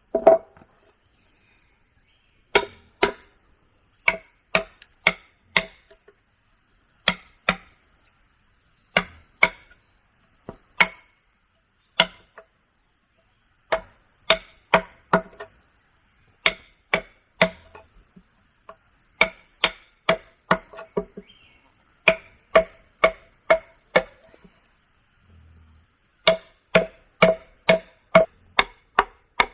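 A hand tool striking wood over and over, in runs of several sharp blows about two a second with short pauses between, each blow giving a brief ringing knock.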